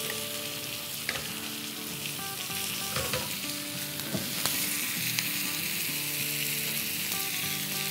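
Chicken and vegetable fajitas sizzling on a hot cast iron fajita skillet, a steady hiss with a few light clicks.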